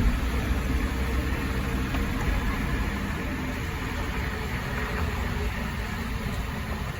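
Steady low rumble of road and engine noise from a moving vehicle, heard from inside it.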